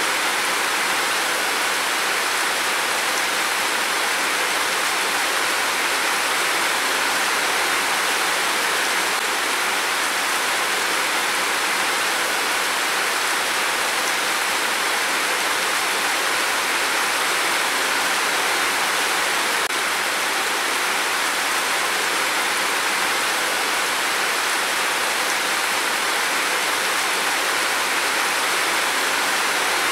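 Heavy rain pouring down in a steady, even hiss, with no thunder heard.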